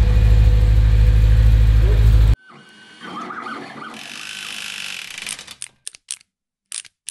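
A naturally aspirated BMW E92 M3 V8 idling with a deep, steady rumble, cut off abruptly about two and a half seconds in. Then a logo animation's sound effect follows: a quieter mechanical whirring of turning gears, ending in a few sharp clicks.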